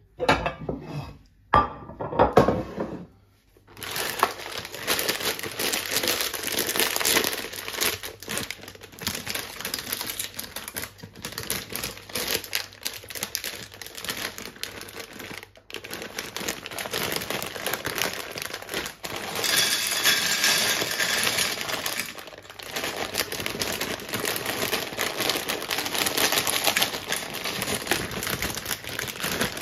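A plastic bag of dry penne pasta crinkling and rustling continuously as it is handled and opened. Near the start there are a few knocks and clinks of a glass baking dish being handled.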